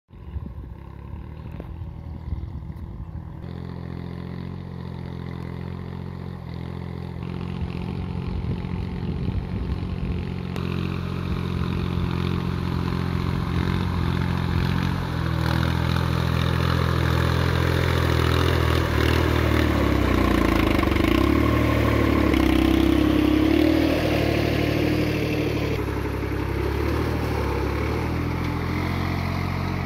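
Mini tractor engine running steadily as it pulls a tined plough down a crop row, growing louder as it approaches.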